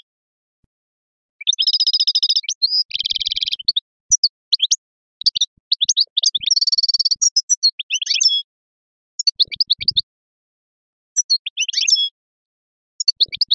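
European goldfinch singing in bursts of rapid twittering phrases and buzzy trills, with short pauses between phrases.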